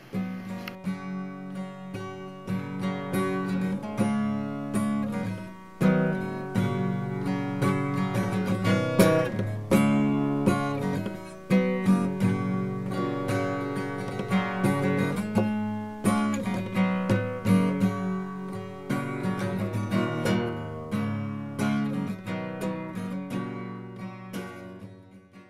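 Acoustic guitar music, plucked and strummed, fading out at the end.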